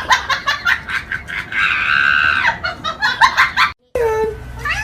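A person laughing hard in quick pulses, breaking into a high held squeal for about a second, then more laughing that cuts off abruptly near the end.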